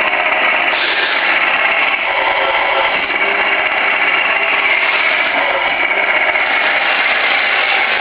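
Electronic sound unit of a 1/16 scale RC Leopard 1A4 tank playing its simulated tank engine, running steadily through a small speaker.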